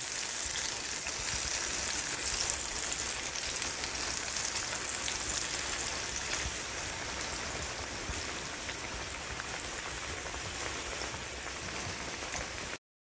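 Battered squash pieces deep frying in a cast iron skillet of hot oil, with a steady sizzle that eases slightly over time and cuts off suddenly near the end.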